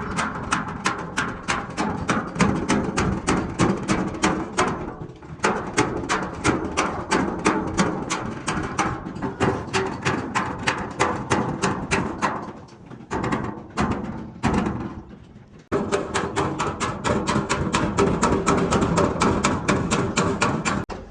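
Rapid hammer blows on a metal truck fuel tank, about five a second, stopping briefly a few times: the dents are being beaten out.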